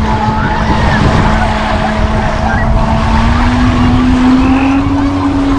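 Motorboat engine droning out on the lake, its pitch rising slightly about halfway through as it speeds up. Small waves lap at the shore underneath.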